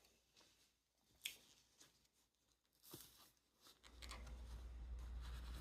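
Near silence with a few faint clicks from pliers working the worn wheel off the robot vacuum-mop, then a low steady hum starts about four seconds in.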